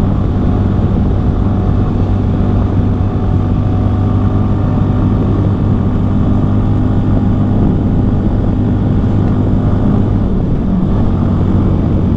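CFMoto Papio XO-1 minibike's single-cylinder engine running steadily under way, over a steady rush of road noise. The engine hum dips briefly about ten seconds in.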